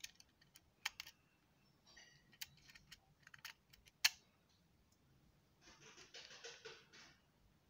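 Plastic clicks and clacks of a Lego Technic toy gun being handled and worked, with a sharp snap just after four seconds in as the loudest sound. Near the end comes about a second and a half of rustling.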